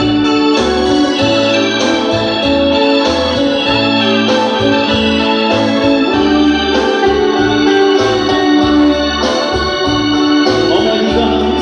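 Live grupera band playing an instrumental passage over a PA: an electronic keyboard with an organ sound holds long melody notes over a moving bass line. No singing in this stretch.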